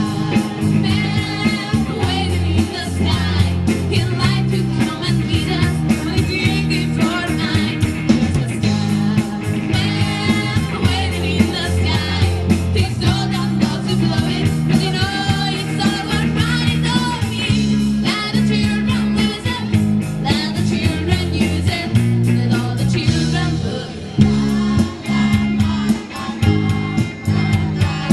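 A woman singing lead into a microphone, with vibrato, over a live rock band with guitar, bass and drums.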